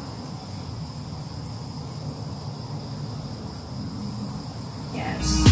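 Steady low hiss and gentle sizzle from a frying pan of warming oil on a gas stove, with a few small test bits of batter frying in it; the oil is not yet fully hot. Music starts right at the end.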